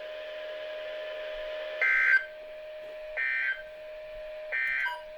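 EAS end-of-message (NNNN) data bursts from a NOAA Weather Radio broadcast: three short digital bursts a little over a second apart, the first the loudest, marking the end of the severe thunderstorm warning. A faint steady tone runs underneath and drops out during each burst.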